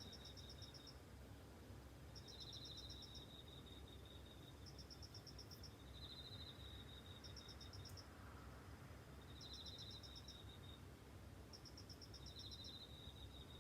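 Crickets chirping faintly: a trill near the lower pitch and a quicker, higher pulsed chirp sounding together, repeating about every two and a half seconds, over a low background rumble.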